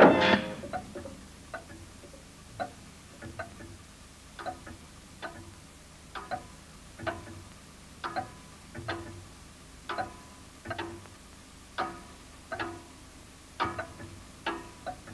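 Slow tick-tock ticking, about one tick a second in an uneven alternating rhythm, each tick ringing briefly. A sharp hit at the very start opens it.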